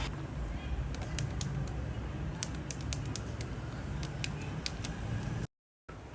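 Scattered light clicks and taps of plastic being handled, over a low steady hum; the sound cuts out completely for a moment near the end.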